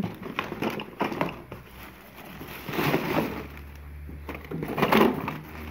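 Items being rummaged through in a plastic garbage bag: rustling and crinkling of the plastic and paper, with light clicks and knocks of small wooden pieces being handled. The loudest rustles come about three seconds in and again near the end.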